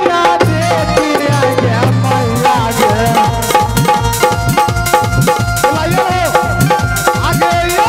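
Loud stage dance music with a melody line over a steady drum beat; the low beat comes in more strongly about two and a half seconds in.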